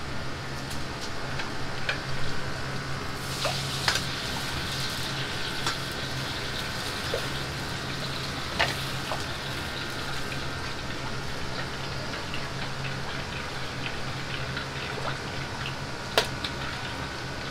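Liquid sizzling in a wok over a high gas flame, the hiss swelling a few seconds in, over a steady low hum. A few sharp metal clinks of the ladle against the wok, the loudest near the end.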